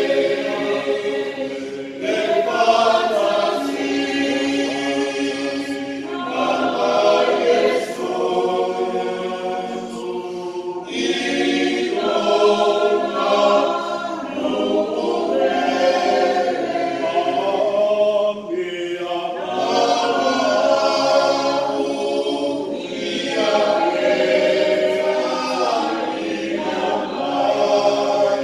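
Church choir singing a hymn in several voice parts, in long held phrases broken by short pauses for breath.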